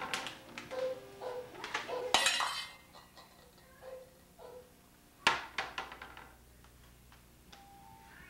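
A fluted metal mold clanking and clinking against wooden cabinet doors and the floor, mixed with knocks of a cabinet door being pulled open. The loudest clatter, with a brief metallic ring, comes about two seconds in; another hard clank comes about five seconds in.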